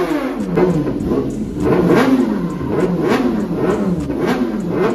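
Kawasaki ZX-10R inline-four superbike engine being revved on the stand in repeated throttle blips, about one a second, the pitch rising and falling with each.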